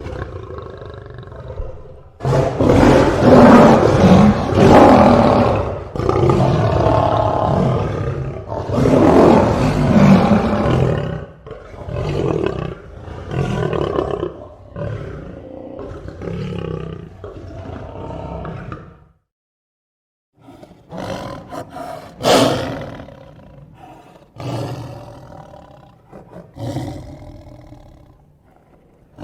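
Lion roaring: a few long, loud roars followed by a run of shorter grunts that grow fainter, then after a short break a second, quieter series of short grunting roars.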